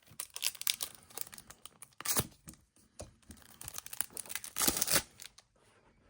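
Foil wrapper of a trading card pack being torn open and crinkled in the hands, a run of crackling rips that stops about five seconds in.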